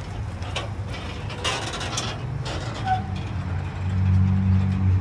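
A vehicle engine running with a low steady hum that grows louder about four seconds in, with a few scattered clicks and rattles.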